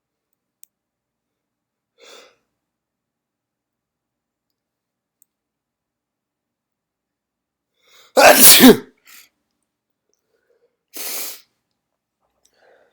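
One loud, wet, induced human sneeze about eight seconds in, preceded by a faint breath. A shorter, much quieter breathy sound comes about three seconds after it.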